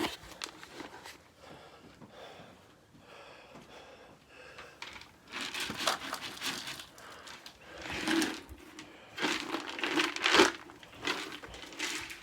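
Rustling and crinkling in several loud bursts over the second half, after a few seconds of faint clicks and handling noise.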